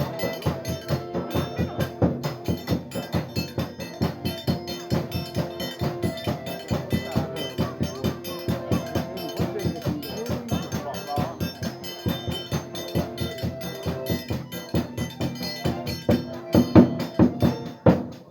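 Festive music with a fast, steady percussion beat, about five strokes a second, over held melodic notes, with a few louder strikes near the end.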